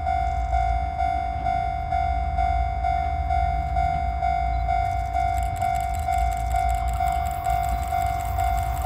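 Japanese level-crossing warning bell ringing steadily at about two rings a second, over a low rumble. About halfway through, a rhythmic high ticking builds as a DD51 diesel locomotive hauling a freight train approaches.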